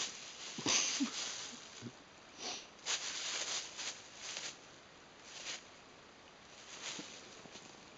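Thin white plastic bag crinkling and rustling in irregular bursts as a cat paws at it and pushes her head into it. The longest bursts come about a second in and around three seconds in, with shorter rustles after.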